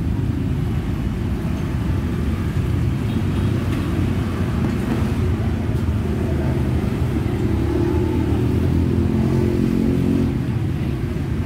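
Steady low rumble, with a pitched drone joining about eight seconds in and fading near the end.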